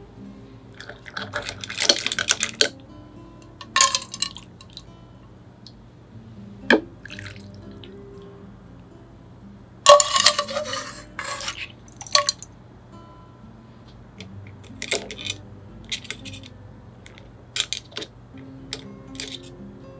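Shijimi clams and miso soup being ladled into a bowl: splashes of poured broth in several short bursts, the largest about 2 and 10 seconds in, and small shells clinking against the ladle and bowl.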